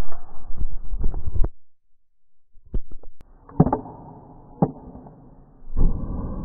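Hands peeling garlic and working a small plastic garlic chopper: scattered clicks and knocks, a short pause about two seconds in, then a longer rustling stretch near the end.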